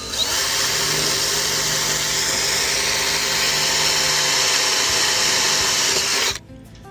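Power drill running steadily, drilling a screw hole into an aluminum mast, then stopping abruptly about six seconds in.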